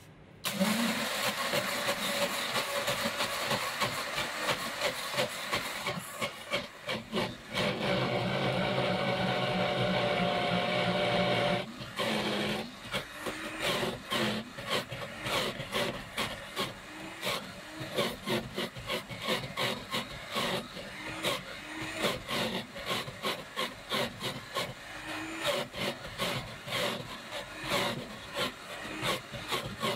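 High-speed countertop blender spinning up and crushing ice with mango and honey into a slushie, its motor running loud and steady at first. About twelve seconds in it dips briefly, then runs on with a rapid, uneven pulsing as the tamper pushes the thick frozen mix down onto the blades.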